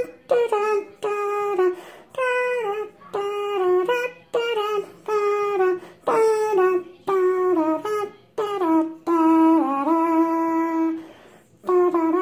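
Unaccompanied voices singing a short jingle in phrases of about a second each, the pitch stepping down within each phrase, with one long held note near the end.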